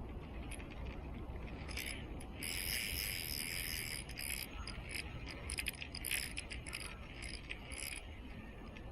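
Fishing reel's drag buzzing as line is pulled off, first in a long run about two and a half seconds in, then in irregular short spurts, as a hooked fish takes line.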